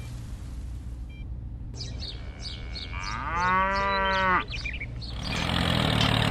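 Rain hiss that stops about a second in, then birds chirping and one long cow moo. About five seconds in, an engine starts running steadily.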